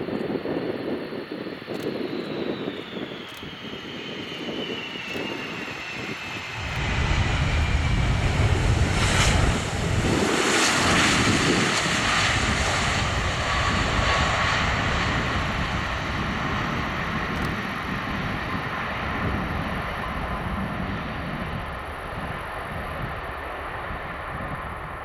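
Boeing 747-400 freighter's four jet engines as it lands and rolls out close by: a high engine whine falls steadily in pitch over the first several seconds, then a deep rumble swells suddenly about six or seven seconds in, is loudest as the jet passes, and slowly fades as it rolls away down the runway.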